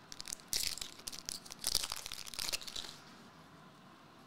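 Foil wrapper of a Marvel Eternals trading card pack crinkling and tearing as it is opened. The rustling comes in quick crackly bursts and stops about three seconds in.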